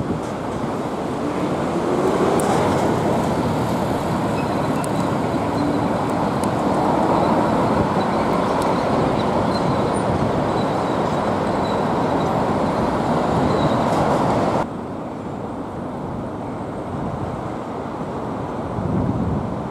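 Busy city road traffic: engines and tyres of passing cars, with one vehicle speeding up about two seconds in. The traffic noise drops suddenly to a quieter level about three quarters of the way through.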